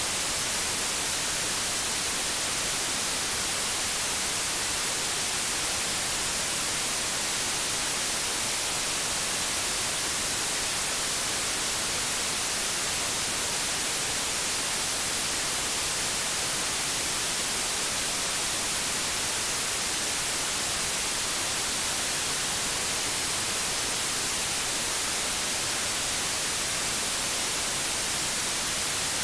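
Steady white noise: an even, unchanging hiss that is brightest in the highs.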